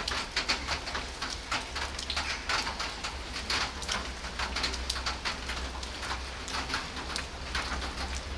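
Steady rain falling, with many close drops landing as sharp clicks over a continuous hiss.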